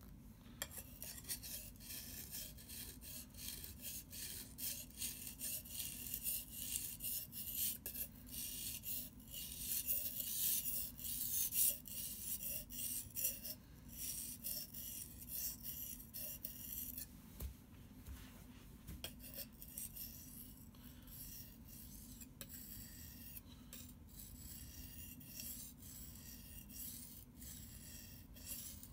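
Survival knife blade stroked back and forth across a wet whetstone, a repeated gritty scraping of steel on stone. The strokes are loudest for the first dozen seconds and softer in the later part.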